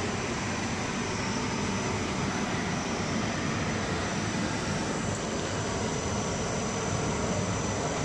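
Continuous carbonization plant running steadily: a drone and hiss from its motors and screw conveyors as charcoal powder discharges, with a faint steady high whine.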